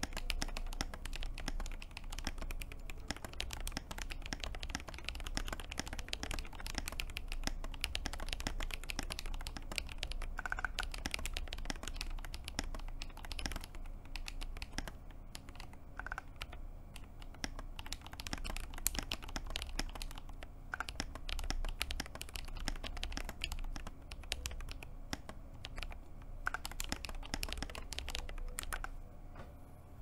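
Steady, fast typing on a Glorious GMMK Pro mechanical keyboard fitted with lubed Glorious Panda tactile switches on a polycarbonate plate, a dense run of key clicks that thins out a little near the end.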